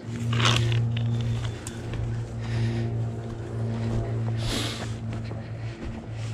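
An engine idling steadily with a low, even hum. Over it, two short bursts of rustling in dry forest litter, about half a second in and again near the middle.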